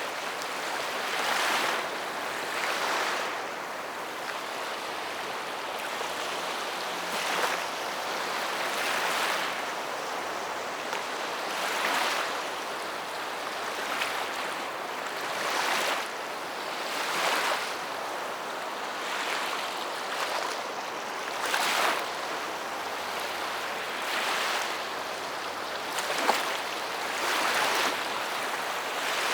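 Sea waves breaking and washing in: a continuous hiss of surf that swells again and again, irregularly every few seconds.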